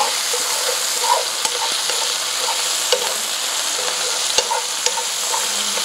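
Chicken pieces sautéing in hot olive oil in a skillet: a steady sizzle, with a utensil scraping and clicking against the pan several times as it is stirred.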